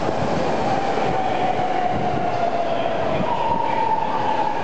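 A 10-car BART train pulling into the platform and slowing, with the steady running noise of its wheels on the rails. Over it is a whine that falls slowly in pitch. A second, higher whine joins about three seconds in and also falls.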